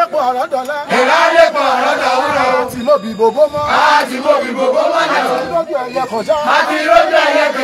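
A group of men and boys chanting together loudly in phrases of a couple of seconds, with short breaks between phrases.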